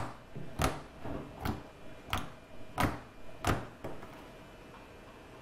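Thick glue slime being poked and pressed by hand, giving a series of sharp popping clicks about every half second that stop about four seconds in.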